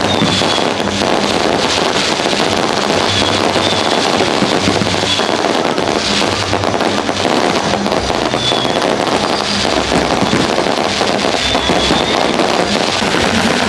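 Fireworks display: continuous crackling and popping mixed with music that has a steady low beat.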